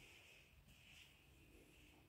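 Near silence: faint room tone with a steady hiss.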